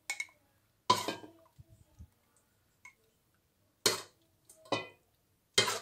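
Spoon clinking against a small glass jar while strawberry jam is spooned into it: about five sharp clinks spread out, the loudest about a second in, near four seconds and just before the end.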